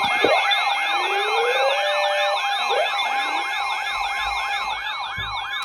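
Electronic siren alert tone: fast, repeating rising yelp sweeps, about three to four a second, layered over a steady tone. It is the attention signal for a flash flood warning.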